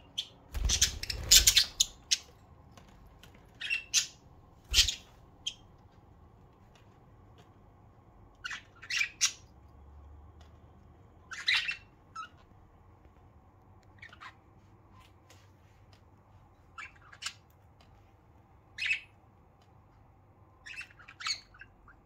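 Budgerigars giving short, sharp squawks and chirps in scattered bursts, busiest in the first five seconds and sparser after. A couple of low bumps come with the first calls, about a second in and again near five seconds.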